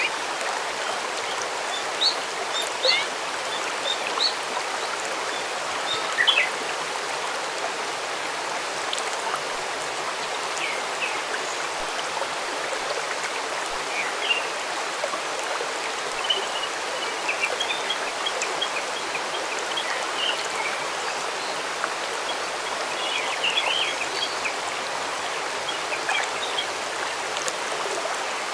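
A stream running steadily, with small birds chirping and trilling over it now and then.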